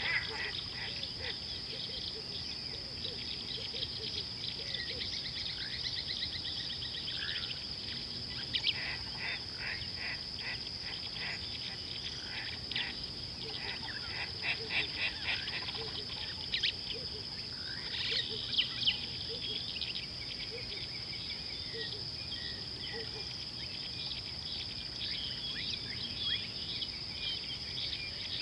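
Outdoor ambience of a steady, high-pitched insect drone with birds chirping in repeated short calls over it.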